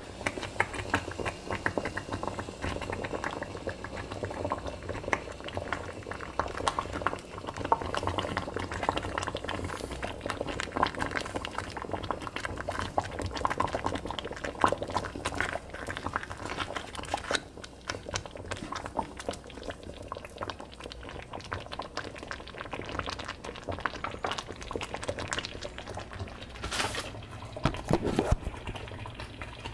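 Thick chicken mole sauce bubbling in a saucepan at a simmer, with a steady stream of irregular soft pops as bubbles break through the surface.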